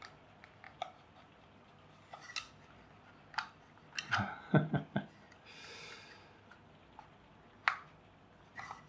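Light clicks and taps of a plastic end piece and a metal power bank casing being handled and pushed together, with a cluster of louder knocks about halfway through and a brief scrape just after. Another sharp click comes near the end.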